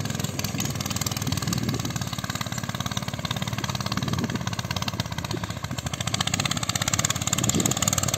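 Homemade four-wheel-drive mini tractor's engine running steadily while it drags a harrow across the plot, with a fast, even pulse.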